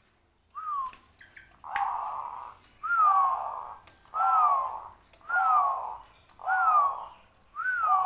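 Caged dove giving a short call over and over, seven times at about one a second: each a quick downward-sliding note over a rough buzz.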